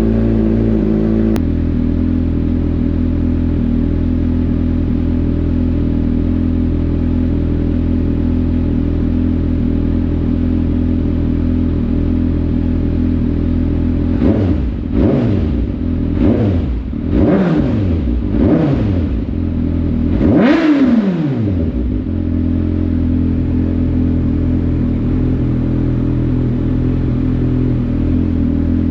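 2020 Kawasaki ZX-6R's 636 cc inline-four, fitted with a Yoshimura Alpha T slip-on exhaust, idling steadily in neutral. About halfway through it is blipped in a quick series of throttle revs, each rising and falling back, the last one the highest, then it settles back to idle.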